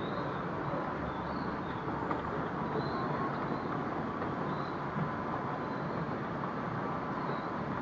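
Steady railway-station ambience under a train shed: people walking with rolling suitcases and city traffic below, with faint high chirps recurring every second or so.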